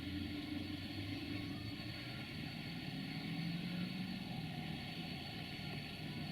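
Train engine running steadily, its low hum lifting slightly in pitch about three seconds in.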